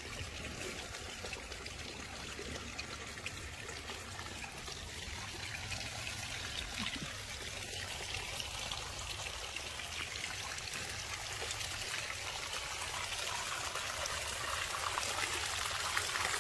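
Water trickling and running steadily, growing slightly louder toward the end.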